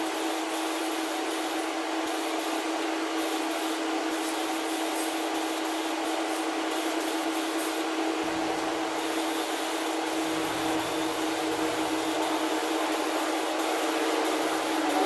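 Box-fan exhaust of a home spray booth running with a steady hum, under the hiss of an aerosol can of 2K clearcoat being sprayed in passes, more continuous in the second half.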